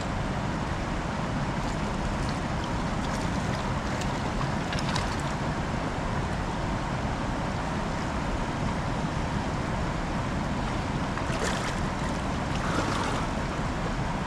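A steady low rushing noise, with a few faint splashes and sloshes of shallow water as hands feel about in it.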